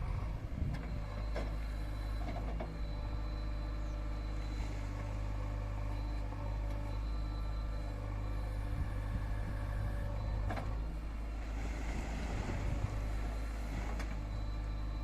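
Diesel engine of a backhoe loader or tractor running steadily under load, with a few sharp metallic clanks.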